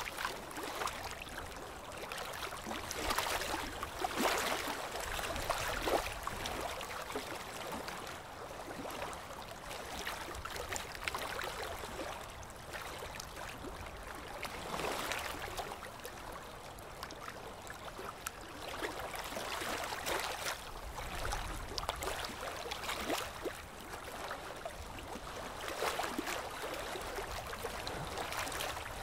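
Water splashing and sloshing in irregular surges, over a faint low rumble.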